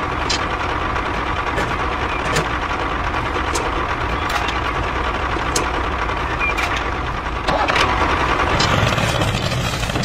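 A vehicle engine running steadily, louder from about seven and a half seconds in, with a few faint clicks over it.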